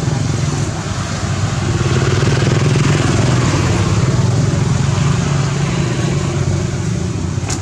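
A motor vehicle's engine running steadily, growing louder through the middle and then easing off.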